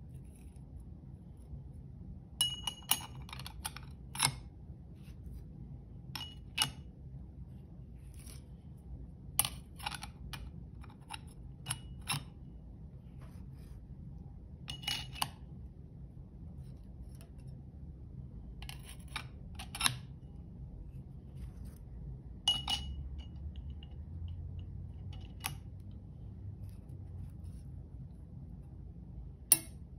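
Steel clutch plates and friction discs of an MF50A clutch pack clinking as they are slid one at a time onto the hub in the clutch basket: sharp metallic clinks at irregular intervals, a dozen or so in all, over a faint steady low hum.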